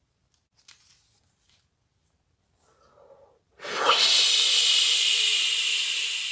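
A woman blows a long, breathy "whoooosh" to imitate the wind filling a sail. It starts a little past halfway through and lasts about three seconds. Before it, the faint rustle of a book page turning.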